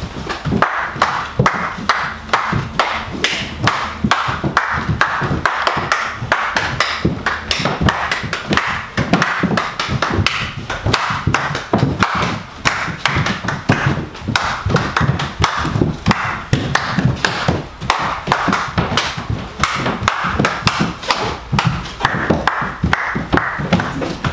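Several people's quick, heavy footsteps and stamps on a wooden floor: a dense, irregular run of thuds and taps, loud enough that the group is then asked to enter more quietly.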